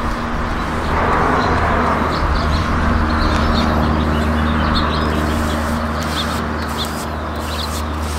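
Small birds chirping repeatedly over a steady low mechanical hum, with a broad rushing noise that swells about a second in and slowly fades.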